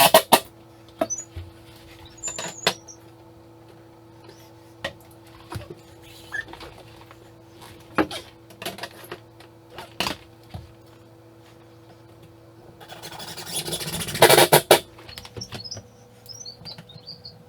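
Scattered sharp clicks and knocks of hand work on mirror hardware, over a steady low hum. Near the end comes a louder, rasping noise lasting about two seconds.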